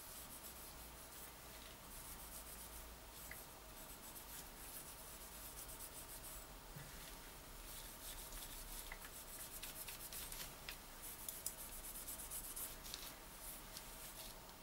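Faint, irregular scratchy rubbing of a cloth worked over a small metal part in rubber-gloved hands, with a few light clicks in the second half.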